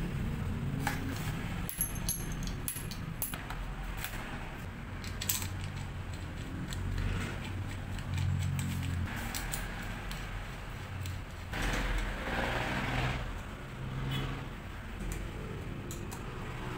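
Small metallic clicks and clinks of an Allen key working the top-cap bolt on a bicycle stem, thickest in the first few seconds, with a short rustling scrape about twelve seconds in over a steady low hum.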